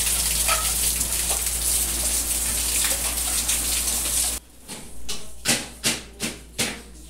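Steady rain hissing, with water running and dripping off a roof edge; it cuts off abruptly after about four seconds. Then come a run of short, sharp rustles and knocks as dish towels and a plastic bag are handled.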